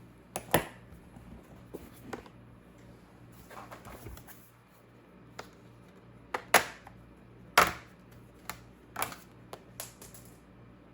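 Irregular sharp clicks and knocks of hard parts being handled, a few of them louder and mostly in the second half, with soft rustling between.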